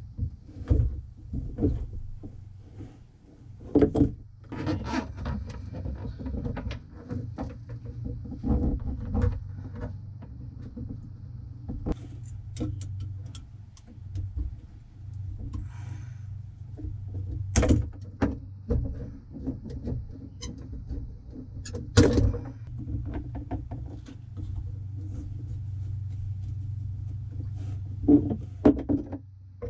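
Irregular knocks, clicks and scrapes as a fuel sender is worked loose and lifted out of its opening in a boat's fuel tank, with sharper knocks about 4, 17 and 22 seconds in, over a steady low hum.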